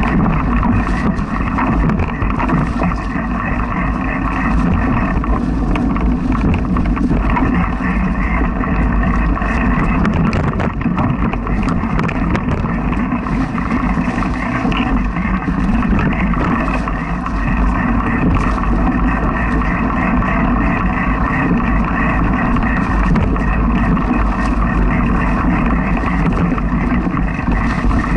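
Mountain bike riding over a dirt forest trail, picked up by a bike-mounted camera: a steady loud rumble of the tyres and frame, with many small rattles and clicks and some wind on the microphone.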